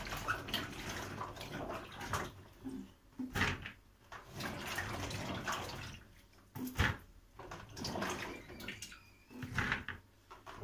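Cucumbers being rubbed and swished by hand in a plastic basin of water, with irregular sloshing and splashing and a few short knocks as they are dropped into a plastic colander.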